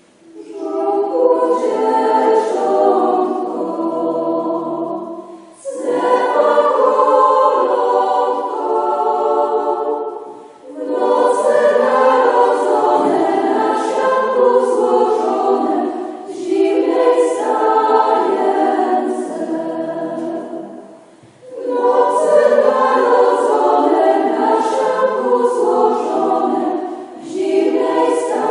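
Women's choir of nuns singing a Polish Christmas carol (kolęda) unaccompanied, in phrases of about five seconds, each followed by a short breath pause.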